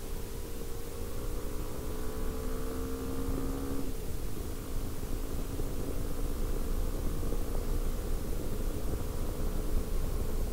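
Hero XPulse 200's single-cylinder four-stroke engine running under way, its note climbing slowly and then dropping suddenly about four seconds in before holding steady. Wind rumbles on the microphone throughout.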